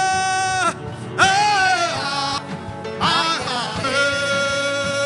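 Worship song: a voice sings long held notes over backing music, three sustained phrases with short breaths between them.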